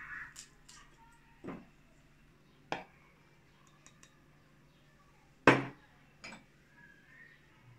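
A few separate knocks and clinks of a drinking glass against a ceramic bowl and table as starch is tipped from the glass into the bowl; the loudest knock comes a little past halfway, followed by a softer one.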